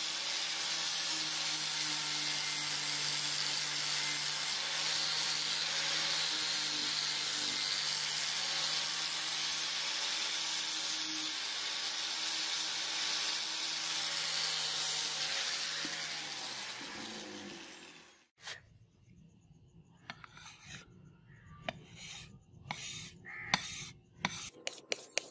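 A power grinder's spinning abrasive disc grinding the steel blade of a billhook: a steady hiss over a low motor hum that dies away about sixteen seconds in. Then the blade is stroked across a wet whetstone, short scraping strokes that come faster near the end.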